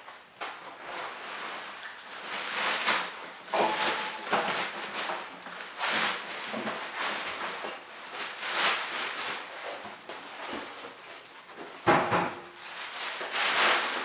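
Plastic bag wrapping and packing foam rustling and crinkling while a boxed welder is unwrapped by hand. A sharp thump near the end, the loudest sound, as the welder is set down on the floor.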